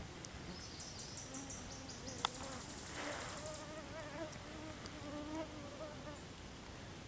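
A flying insect buzzing close to the microphone, its hum wavering up and down in pitch for several seconds and fading out near the end.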